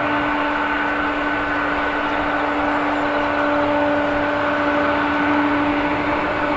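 Boeing 777 turbofan engines running at a steady low thrust as the airliner taxis past, a loud even rush with a steady hum and high whine.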